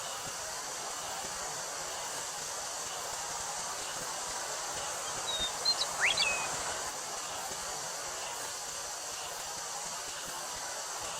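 Steady high drone of summer cicadas over a soft wash of wind through a wheat field. About five seconds in, a bird gives a few short chirps and one quick rising whistle.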